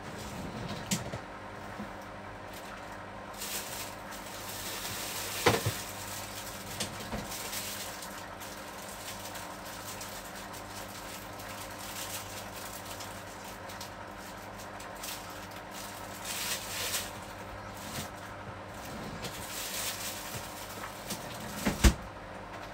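Steady hum of a kitchen appliance, with occasional knocks and clatter of kitchenware being handled. A sharp knock comes about five seconds in, and a louder one near the end.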